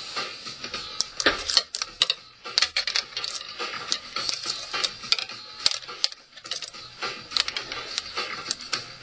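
Close-up handling noise of thin metal wire and a small part being worked by hand: irregular clicks and light scrapes.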